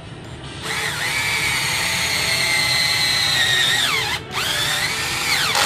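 Cheap cordless drill/driver driving a self-drilling roofing screw into thick steel angle: a steady high motor whine. The pitch sags as the motor bogs under load about four seconds in, and it stops briefly. It then runs again for about a second and a half before cutting off.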